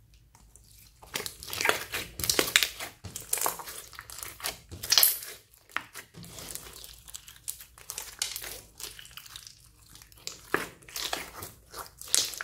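Hands kneading and squeezing a large mass of clear slime mixed with foam beads and glitter: wet, sticky clicks and squelches in irregular clusters, starting about a second in.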